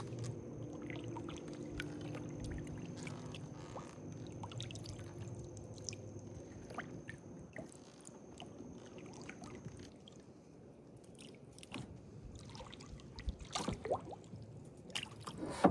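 Kayak paddle strokes: water splashing and dripping off the blades, with a few louder knocks of the paddle against the kayak near the end.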